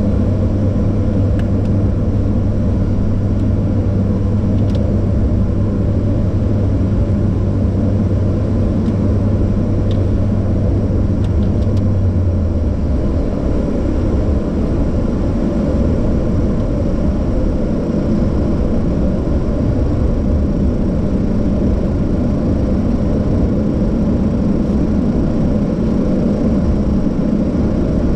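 Let L-410 Turbolet's twin turboprop engines and propellers running steadily during the landing roll, heard from inside the cockpit. A low steady hum drops out about twelve seconds in.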